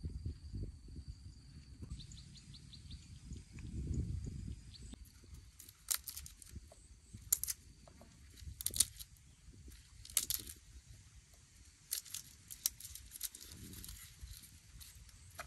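Garlic bulb being broken into cloves and peeled by hand: a run of short, dry papery crackles, roughly one every second or so through the second half, after low handling rumbles at the start.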